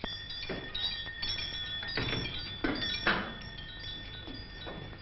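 Metal cooking pots and lids clinking and knocking at a kitchen stove: about five sharp knocks, each with a brief metallic ring.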